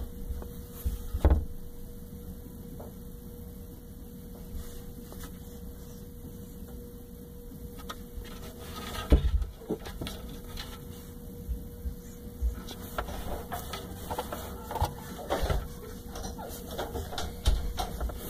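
A cat shifting and rubbing its fur against the phone's microphone: scattered rustling and scraping, with low thumps about a second in and halfway through, growing busier near the end, over a steady faint hum.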